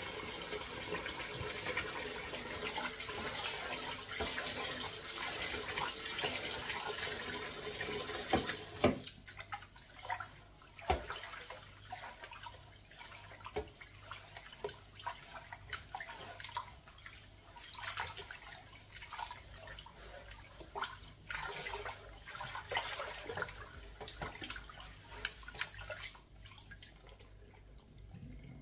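Kitchen tap running steadily, shut off about nine seconds in, followed by scattered light knocks and splashes as water and kitchenware are handled.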